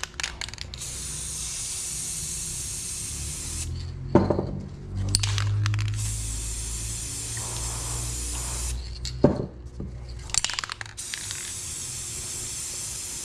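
Aerosol spray paint cans hissing in three long bursts as paint is sprayed onto water for hydro dipping, with a short sharp knock between bursts.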